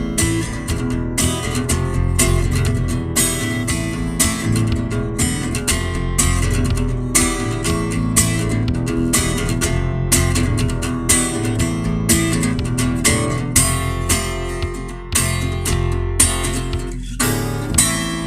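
Strummed guitar music in a steady rhythm over sustained low notes, easing off toward the end with a last chord left ringing.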